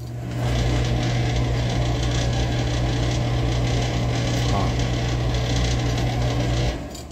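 An electric kitchen appliance motor running with a steady deep hum and a whir for about six seconds, then switched off abruptly near the end.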